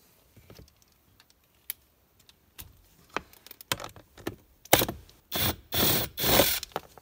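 Scattered light clicks of a socket and its flexible extension being fitted onto the blower motor's 7/32 screw. Then a sharp click and three short loud bursts about a second before the end, as the screw is turned out.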